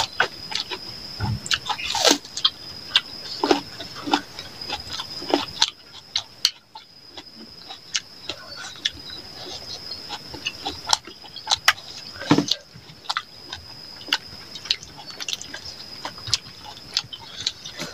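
Close-up mukbang eating sounds of two people eating chicken curry and rice by hand: many short, irregular wet smacks, chewing and mouth clicks, over a steady high-pitched whine.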